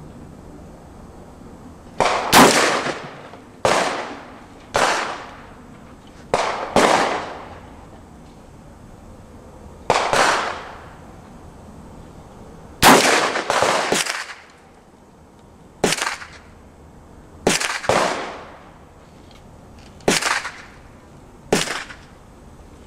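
About fifteen rifle shots from a .450 Bushmaster AR-15-platform carbine, fired at irregular intervals, sometimes two or three in quick succession. Each shot is a sharp crack with a short echoing tail.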